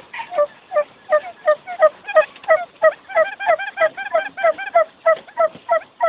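Quail calling: short, hooked, pitched notes repeated rapidly and evenly, about three a second. This is a decoy call recording used to lure wild quail.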